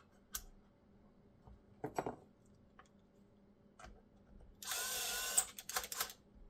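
A few light clicks of small parts being handled, then a small electric screwdriver runs for about a second and gives several short bursts, driving screws into the console.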